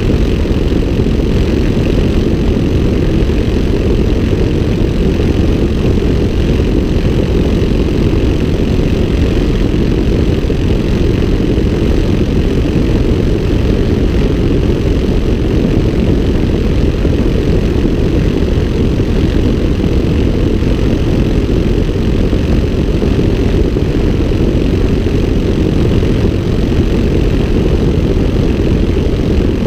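Small high-wing airplane's engine and propeller running steadily in flight, mixed with heavy wind rush over the outside-mounted camera.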